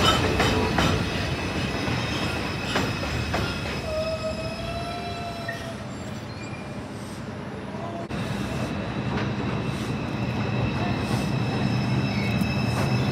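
R142 subway trains on elevated steel track. A departing train rumbles and clatters away, fading by the middle. A second R142 then approaches, growing louder with a steady high wheel squeal.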